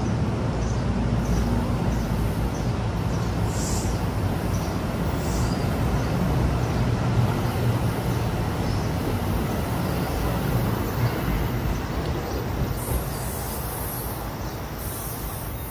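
NJ Transit multilevel passenger coaches rolling past at close range as the train pulls out of the station: a steady rumble of wheels on the rails. It eases slightly near the end as the six-car train draws away.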